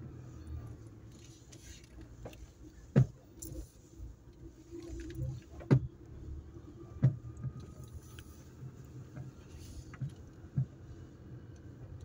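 A car driving slowly, heard from inside the cabin: a steady low engine and road rumble, broken by about five sharp knocks or rattles, the loudest about three seconds in and again near six seconds.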